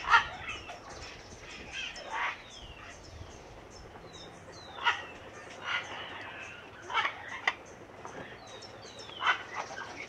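Parrot squawking: about seven short calls every second or two, several sliding down in pitch.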